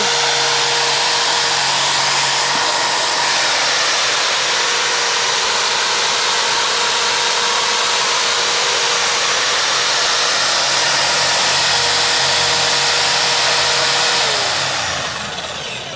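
Skil 7-amp half-inch corded drill motor driving a converted outboard lower unit and propeller, running steadily at full speed out of the water with a loud whine. About fourteen seconds in it is switched off and winds down, its pitch falling.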